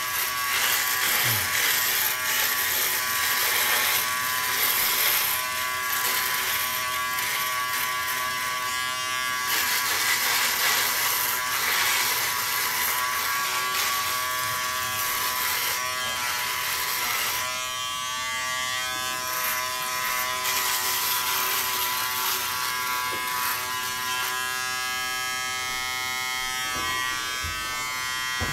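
Remington Wetech PF7580 foil shaver running against the neck and jaw: a steady motor buzz under a rasping hiss of stubble being cut. About two-thirds of the way through the hiss thins out and the buzz stands clearer.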